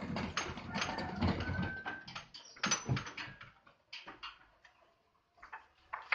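Clatter of knocks, clicks and rattles as heavy loudspeaker cabinets are handled and stacked against a metal truss frame. It is busiest in the first three seconds, with a low rumble under it, then thins to scattered knocks.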